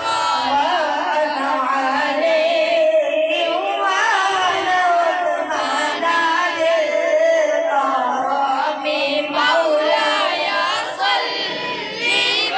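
A slow, melodic vocal chant sung with long, wavering held notes.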